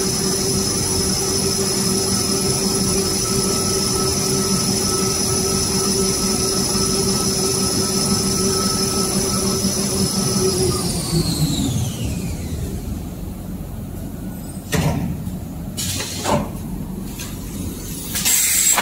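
Toilet tissue and kitchen towel rewinding machine running with a steady high whine. About eleven seconds in it is stopped and spins down, the whine falling in pitch and dying away within about two seconds. Two sharp clunks follow, and a short louder rush of noise near the end.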